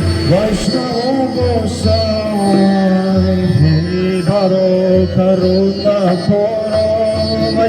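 Devotional Krishna kirtan: long, wavering sung notes over a steady drone accompaniment.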